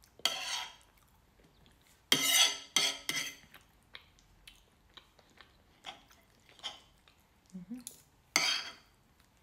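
Knife and fork scraping and clinking against a plate as food is cut up. There are a few short, loud scrapes, two close together around two to three seconds in and one near the end, with light clicks between them.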